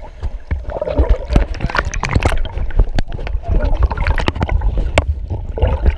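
Pool water churned by swimmers kicking and splashing, heard underwater: muffled sloshing and bubbling with a heavy low rumble and many sharp knocks, louder from about half a second in.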